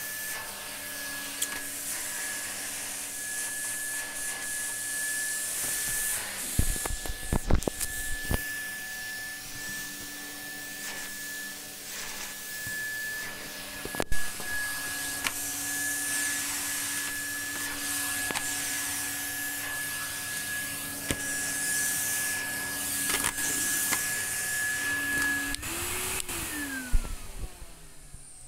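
Numatic NRV 200 tub vacuum cleaner running with a steady motor whine and hum as its floor tool is pushed over carpet, with a few knocks of the tool. Near the end the motor cuts out and runs down, its pitch falling.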